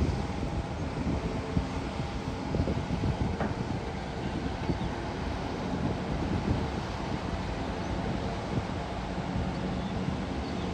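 A Caterpillar hydraulic excavator's diesel engine running steadily as it works, with wind buffeting the microphone.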